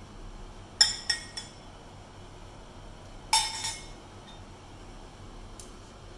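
A steel spoon clinking against bowls as black salt is spooned out: three quick clinks about a second in, a louder ringing run of clinks a little after three seconds, and a faint one near the end.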